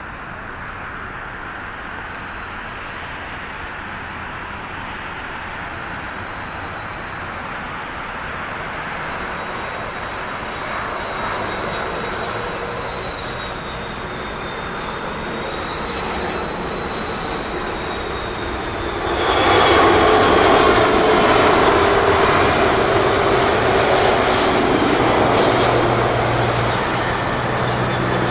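Airbus A330-200's General Electric CF6-80E1 turbofans whining and rumbling on final approach, growing slowly louder as the airliner comes in to land. About two-thirds of the way in the engine noise jumps suddenly much louder: reverse thrust after touchdown, held through the rollout.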